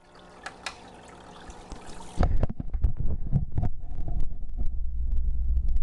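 Trickling water in a planted aquarium, with a steady low rumble and scattered clicks and knocks of handling. The rumble and knocks get louder about two seconds in.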